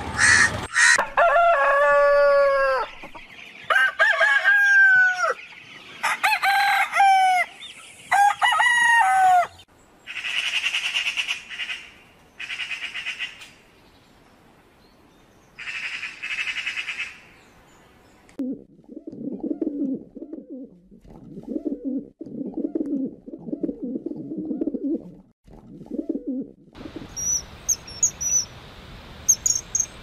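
A crow cawing right at the start, then a rooster crowing four times in a row, each crow falling in pitch. After that come bursts of harsh, rattling Eurasian magpie chatter, a run of low clucking, and rapid high chirps near the end.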